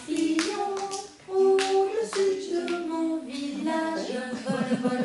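A woman's voice singing a French nursery rhyme for a finger-play game, with a few hand claps in the first couple of seconds and a short break just after one second in.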